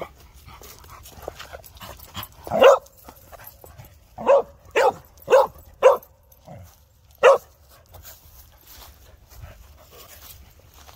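A dog barking: one bark, then a quick run of four about half a second apart, then one more bark.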